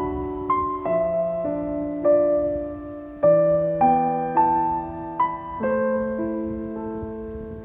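Slow, gentle solo piano music: chords and single notes struck every half second or so and left to ring.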